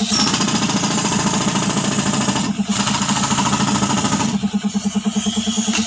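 Pneumatic jackhammer run off a tractor-mounted air compressor, hammering steadily in rapid strokes to break up laterite rock.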